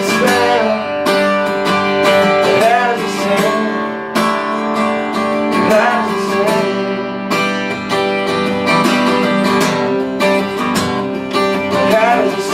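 Acoustic guitar strummed in a steady rhythm, playing out the end of a country song.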